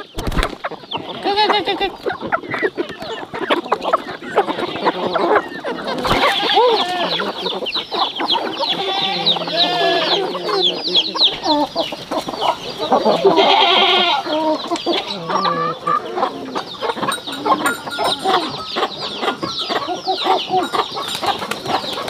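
A flock of chickens clucking and calling, many short calls overlapping one another.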